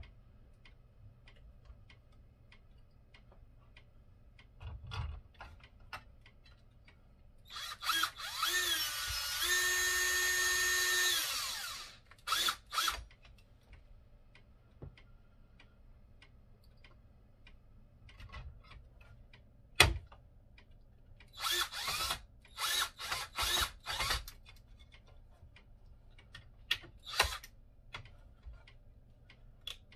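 Cordless drill driving screws into a wooden board: one long run of several seconds, its motor whine rising and then holding steady, followed later by a string of short bursts as screws are run in and seated. A single sharp knock is heard about midway.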